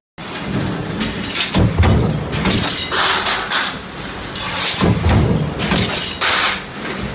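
Mechanical stamping press running a multi-station transfer die, with a continuous machine drone and a heavier stroke about every one and a half seconds.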